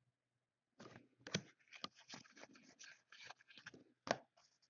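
Football trading cards being handled and flipped through, a faint run of crinkles and clicks with two sharper snaps, one about a second in and one near the end.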